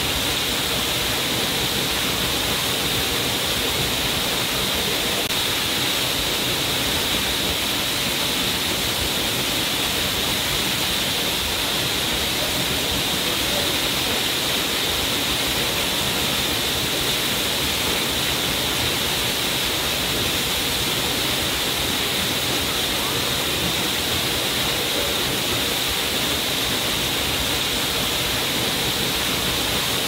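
Waterfall pouring steadily over a rock ledge into a shallow pool: an even, unbroken rush of falling water with a bright hiss and no other sounds.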